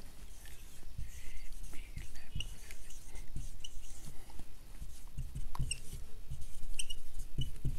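Felt-tip marker writing on a whiteboard: light taps and scratching strokes, with short high squeaks from the tip as the letters are drawn.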